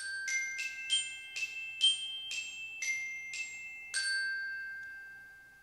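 Countdown timer's finishing alarm: a short tune of about nine or ten quick, struck bell-like notes. The last note rings on and fades away.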